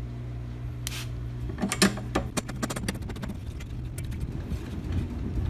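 Small clicks and taps of a metal bolt and the mower's handle bar and bracket being handled and fitted together, a cluster near two seconds in and a run of light ticks after. A steady low hum lies under the first two seconds and then fades out.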